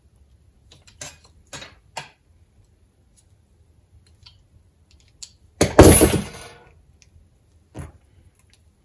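Steel coat-hanger wire clicking against pliers as its end is bent into a loop: a few sharp clicks, then a loud clatter on the wooden worktop about six seconds in as the pliers are put down.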